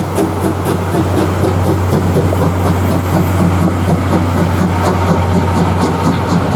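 Class C11 tank steam locomotive running close by with its train: a steady low drone under a rhythmic pulse of exhaust and running noise.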